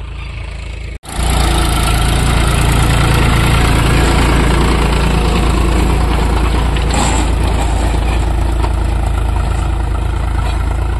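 Powertrac Euro 50 tractor engine running steadily while pulling a seed drill through the soil, heard close up. About a second in the sound drops out briefly, then comes back louder.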